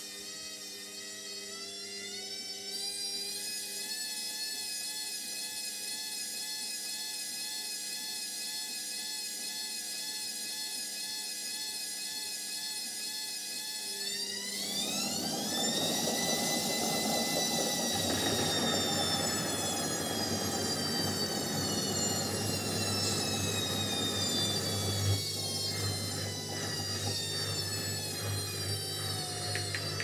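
Indesit front-loading washing machine running, its motor giving a steady whine. About halfway through the whine rises steeply as the drum speeds up, a loud rushing noise from the turning drum comes in, and the whine then falls slowly as the drum slows, with a low rumble under it.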